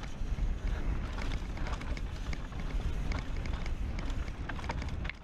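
Mountain bike riding down a loose dirt trail: wind rumbling on the microphone, with the bike rattling and knocking over bumps.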